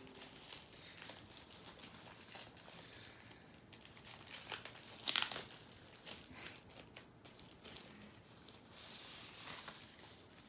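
Packaging being handled and unwrapped: crinkling and rustling wrap, with a short loud crinkle about five seconds in and a longer rustle near the end.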